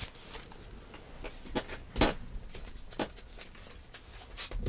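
Handling noise of records in card and paper sleeves being put down and picked up: a string of soft knocks and rustles at irregular intervals, the loudest about two seconds in.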